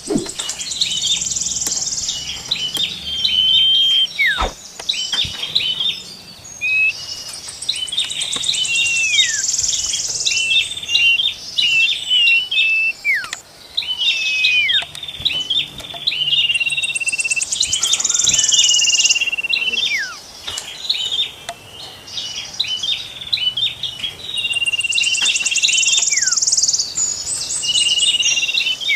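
Songbirds singing: rapid chirps and held whistled notes, with falling whistles and a high buzzy trill that come round again about every eight to nine seconds.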